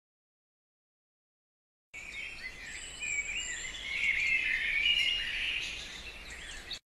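Birds chirping, a busy run of short high calls that starts abruptly about two seconds in and cuts off just as abruptly near the end.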